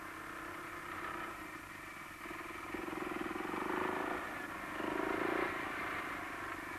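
Hanomag R12 tractor's single-cylinder two-stroke diesel running under load as it pulls a mounted reversible plough through the soil: a steady engine beat that gets louder a little before halfway through.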